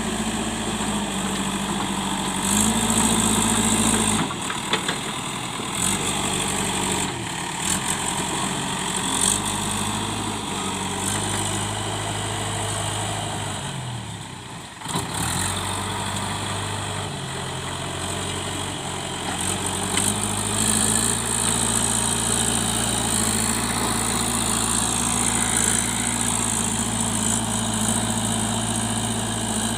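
JCB 3DX backhoe loader's diesel engine running under changing load, its speed stepping up and down as it works, with a brief drop about halfway through.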